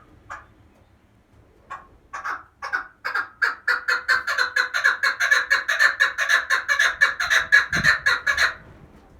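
Female chukar partridge calling: a few separate clucks, then a long run of rapid repeated chucking notes that speeds up to about five or six a second and stops abruptly near the end. This is the hen's call that draws in male partridges.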